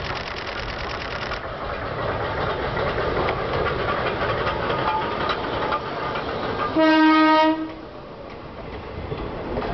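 Tsugaru Railway DD352 diesel locomotive running past with a train of old passenger coaches, its engine loud as it goes by. About seven seconds in the train sounds one short horn blast lasting under a second, the loudest sound. After the horn the coaches roll past more quietly, wheels clicking over the rail joints.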